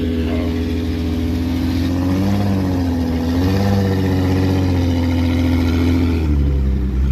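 SUV engine running at low revs while reversing a trailer down a boat ramp, its pitch lifting slightly twice as the throttle is eased on.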